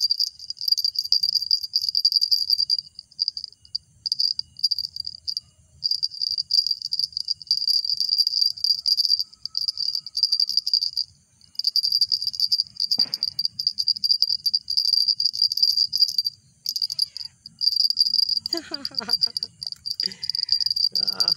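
Small round metal jingle bell, the mother cat's collar bell, shaken by hand in repeated bouts of high, fast jingling with short pauses between them, used to call a kitten. Near the end a few brief lower sounds come in under the jingling.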